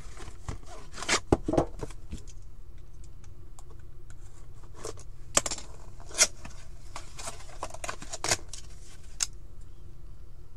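Hands opening a hockey card box: irregular clicks, taps and scrapes of cardboard packaging and a metal card tin being handled, with sharper knocks about a second and a half in and about six seconds in.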